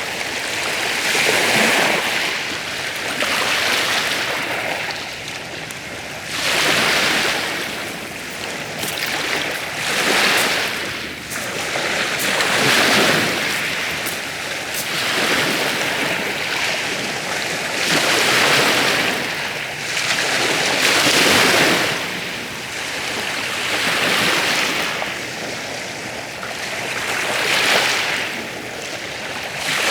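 Sea waves breaking in surf, a rushing hiss that swells and fades again every few seconds.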